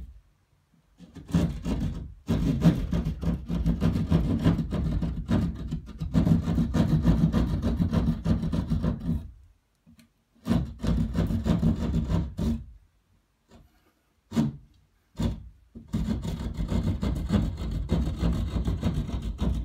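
Plasterboard jab saw cutting through a plasterboard wall with rapid back-and-forth strokes. It comes in several runs broken by short pauses and a few single strokes.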